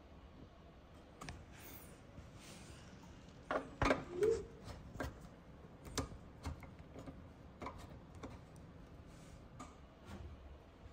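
Scattered light clicks and knocks of something being handled, with a louder cluster about four seconds in.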